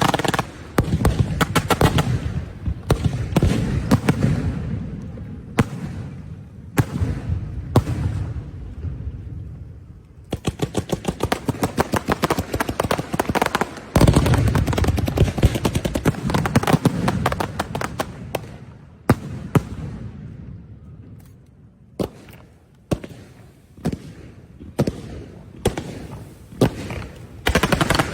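Fireworks and strings of firecrackers going off: dense runs of rapid crackling bangs alternate with single loud reports, each followed by a low rumble. The bangs come more sparsely near the end.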